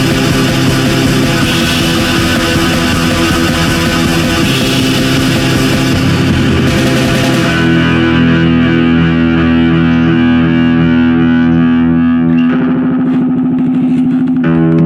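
Distorted electric guitar over drums. About halfway through, the drums drop out and held distorted guitar chords ring on, changing chord twice.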